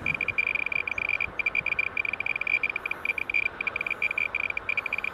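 Thermo Scientific RadEye B20 radiation survey meter chirping rapidly and irregularly, each short high beep a detected radiation count. The rate reflects an elevated reading of about 5 microsieverts an hour.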